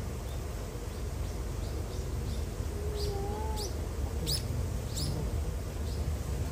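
Small birds chirping: a string of short, high, downward-sweeping chirps, with four louder ones in quick succession about halfway through, over a steady low outdoor rumble.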